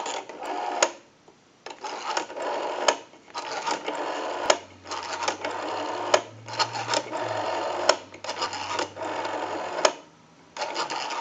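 Western Electric 554 rotary wall telephone's dial being wound and let go several times in a row, each return a whirring spin with a rapid run of clicks as it pulses out a digit, with short pauses between digits.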